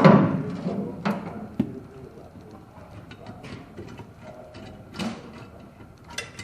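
A loud noise fading away over the first second, then scattered knocks and clicks, typical of tool and metal handling in a repair workshop.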